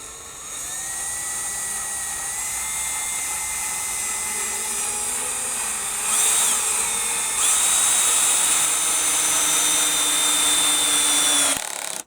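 Power drill driving a screw through a plank into wooden deck planks: one long, continuous whine that steps louder about six seconds in and again a moment later, then stops abruptly near the end.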